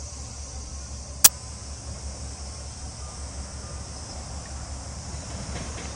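Insects chirring steadily at a high pitch over a low, steady rumble, with one sharp click about a second in.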